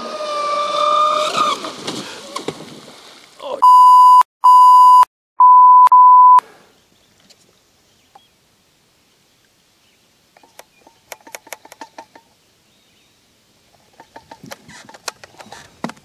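Traxxas Spartan RC speedboat's electric motor whining at high speed, its pitch wavering, fading out about three seconds in. Then four loud electronic beeps at one pitch, followed by faint scattered clicks and knocks.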